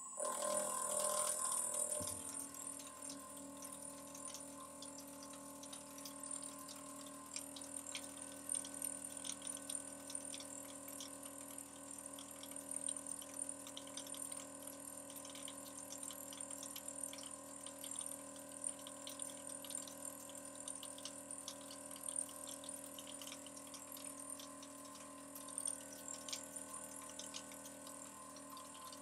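CNC milling machine spindle turning a homemade single-point fly cutter at 2500 RPM while it faces a metal block, a wide shallow cut at 15 inches per minute. It makes a steady whine with many sharp ticks scattered through it, louder for the first couple of seconds.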